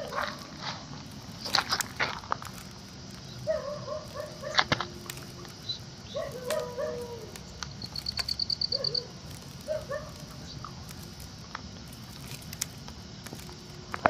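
A dog whining in short, pitched calls that slide down at the end, repeated every few seconds. About eight seconds in comes a quick run of about ten high ticks.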